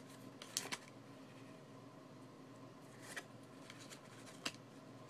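Pokémon trading cards being slid off the front of a small hand-held stack and moved to the back, giving a few short card-on-card rustles and slaps: near the start, about three seconds in, and a sharp one about four and a half seconds in, over a faint steady hum.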